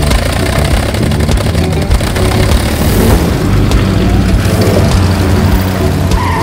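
Steady propeller aircraft engine drone mixed with electronic music.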